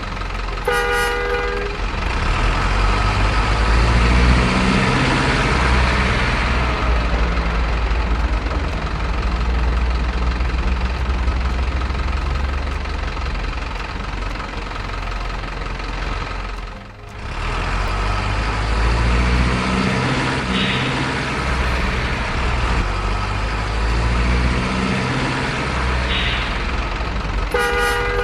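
Heavy diesel trucks running on the road with a steady low engine rumble that swells several times as trucks pass or pull. A short truck horn blast sounds about a second in, and another near the end.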